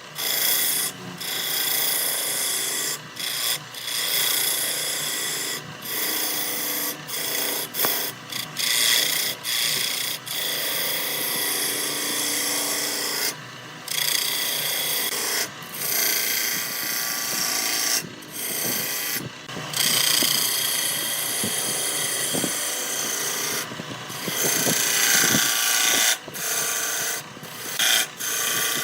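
Hand tool scraping and cutting wood spinning on a lathe, in stretches of a few seconds broken by many short breaks as the tool lifts off.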